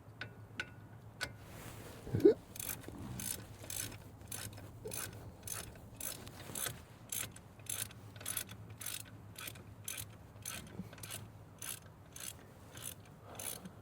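Hand socket ratchet clicking as a brake bolt is turned, an even run of about three clicks a second that starts after a single loud clunk about two seconds in.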